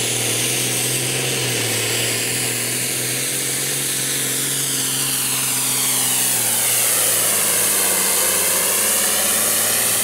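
Hot farm class pulling tractor's engine running at full throttle under load, dragging a weight-transfer sled, with a high whine that dips and rises in pitch over the second half.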